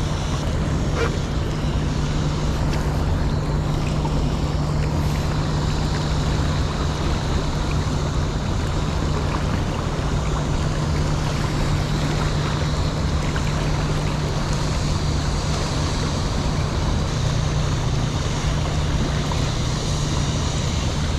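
Steady rushing of river water under a constant low droning hum, unchanging throughout.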